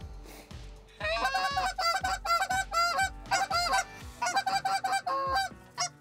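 Canada goose honks and clucks in fast succession, many short calls a second, starting about a second in and running in bursts with brief pauses.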